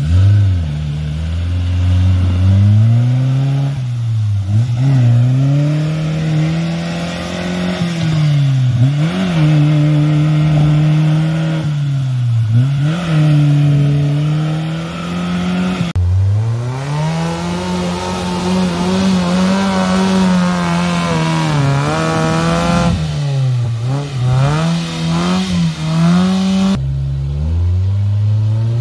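Suzuki Samurai's engine revving hard, its pitch rising and falling again and again as the 4x4 pushes through deep mud. About 16 s and 27 s in the sound changes abruptly, and after that the revving goes on in the same way.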